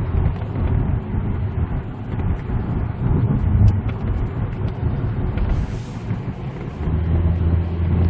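Cabin noise of a 2005 Mercedes-Benz SLK driving at road speed: steady engine hum under tyre and road rumble, the engine hum growing stronger near the end.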